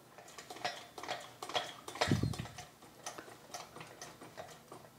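A car's rear coil spring being handled and seated by hand on the suspension arm: irregular light metallic clicks and taps, with one heavier knock about two seconds in.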